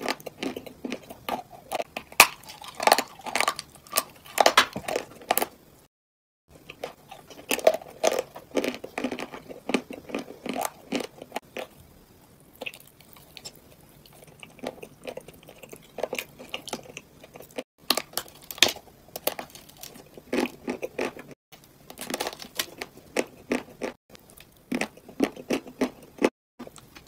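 Close-up crunching bites and chewing of dry, crumbly chalk-like chunks: clusters of quick, sharp crunches, cut by a few brief drop-outs to silence.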